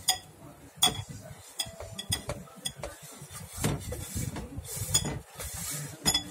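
Utensils and dishes clinking: about seven sharp, ringing clinks spread over several seconds, with handling and stirring noise between them.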